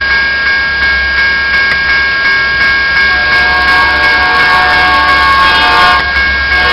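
Railroad crossing bell ringing with regular strikes. An approaching Union Pacific locomotive's multi-note horn joins about three seconds in and breaks off briefly near the end.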